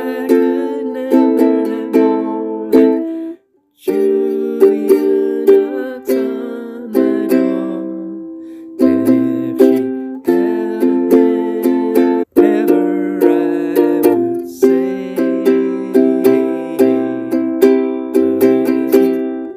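Music of plucked notes and chords, each note struck sharply and dying away. It cuts out briefly about three and a half seconds in and again about twelve seconds in.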